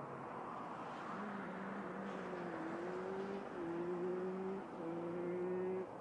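An engine hum that climbs in pitch in a few short steps, starting about a second in and cutting off suddenly near the end, over a steady background hiss.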